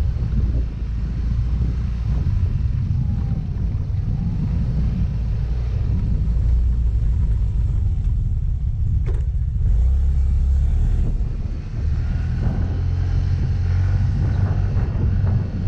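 Yamaha Mio Gravis 125 cc scooter being ridden on a rough road: steady engine and road rumble with wind buffeting on the microphone, and a brief click about nine seconds in.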